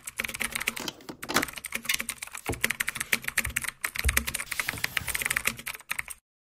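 Computer keyboard typing: a fast, uneven run of key clicks that stops just before the end. It is a typing sound effect set to the title being typed out letter by letter.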